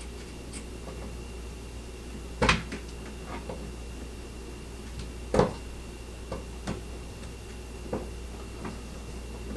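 A few sharp clicks and knocks, the two loudest about two and a half and five and a half seconds in, as the mini electric screwdriver is worked against a tight screw in a phone-jack wall plate. The screw is too tight for the little driver.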